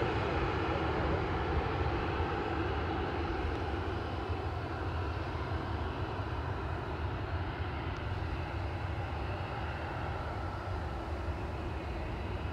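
Boeing KC-135R's four CFM56 (F108) turbofan engines running with a steady, low rumble as the tanker moves along on the ground. The sound eases off slightly as it passes out of view.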